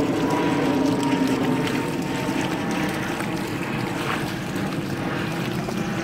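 Shallow river water rushing steadily over rocks.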